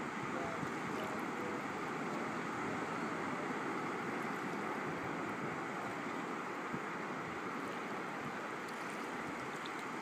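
Shallow water washing over a sandy bottom: a steady rushing wash with no distinct splashes.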